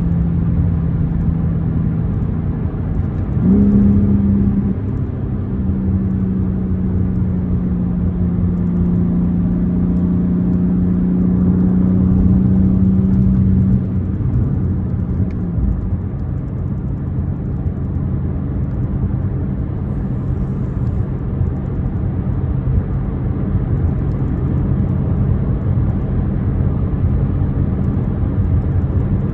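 BMW M4 Competition's twin-turbo straight-six running under way, with tyre and road rumble. The engine note steps up about three and a half seconds in, holds steady for about ten seconds, then eases off into a lower, steady drone.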